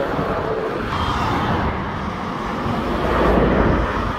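Motorway traffic passing, a steady rush of tyre noise and lorry and car engines, swelling as a heavy vehicle goes by a little past three seconds in.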